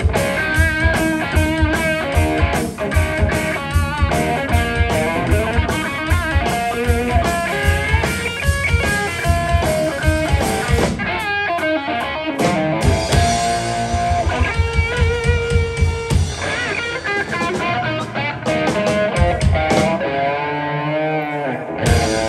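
Live blues band playing an instrumental passage: electric guitar lead with bent notes over electric bass and drum kit. The drums thin out about halfway through.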